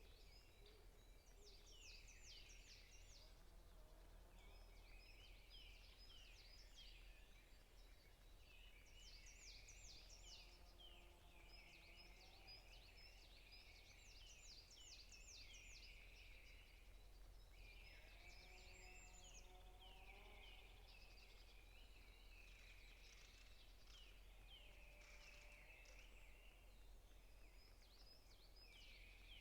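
Several forest songbirds chirping and trilling, faint, with quick runs of short falling notes overlapping almost continuously and a few lower whistled calls, over a steady low hum.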